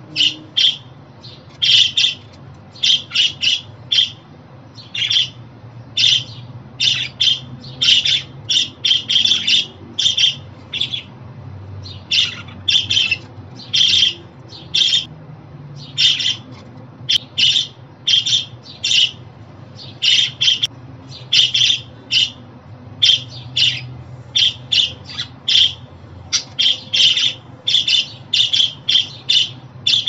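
Budgerigars chattering: short, high chirping calls in quick runs of several a second, with brief pauses between runs.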